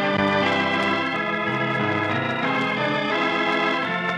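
Organ music: a slow run of held chords that change every half second to a second, a musical bridge opening the first act of a radio drama.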